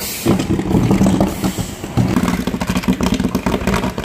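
A vehicle engine running steadily in street traffic.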